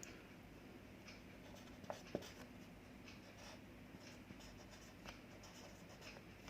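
Faint scratching of handwriting, a pen or marker moving in short strokes, with two small taps about two seconds in.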